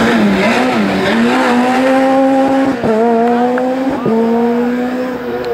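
Rally car engine at high revs as the car passes close at full speed on a special stage, the note held steady with two brief breaks about three and four seconds in as it changes gear.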